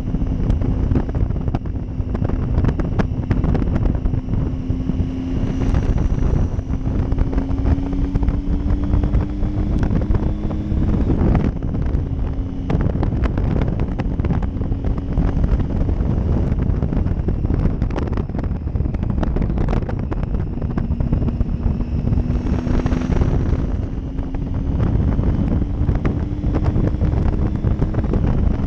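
Wind rushing over the microphone of a moving motorcycle, over the faint running note of a Triumph Tiger 800 XCx's three-cylinder engine. The engine note climbs slowly, drops about a third of the way through, and climbs again in the last third.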